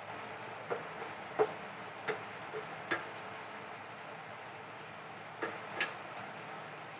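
Wooden spatula knocking and scraping against a metal wok as vegetables are stirred, a quick run of clicks in the first three seconds and two more near the end, over a steady sizzle from the pan.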